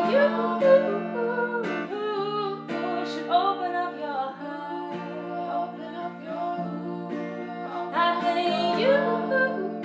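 Acoustic guitar chords with a wordless, gliding vocal melody over them, part of a song performed live.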